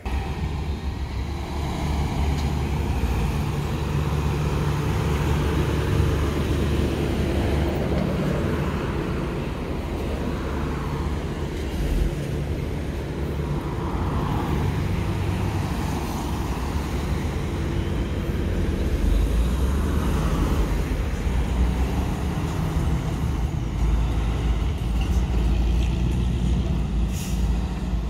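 Close road traffic: the low, steady engine sound of a city bus and tractor-trailer trucks, with cars going by several times. A brief hiss near the end.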